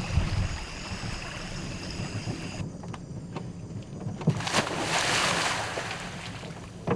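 Night-time river and swamp ambience: insects and frogs calling steadily over a low rumble, cut off abruptly about two and a half seconds in. About four seconds in, a knock and then a rush of water noise that swells and fades over roughly two seconds, a splashing disturbance in the reeds.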